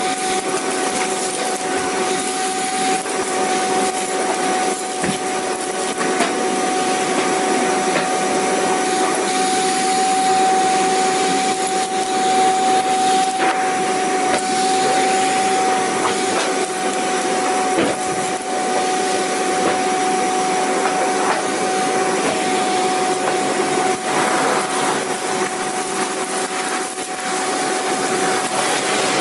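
Vacuum cleaner running steadily, a constant hiss of rushing air with a steady motor whine.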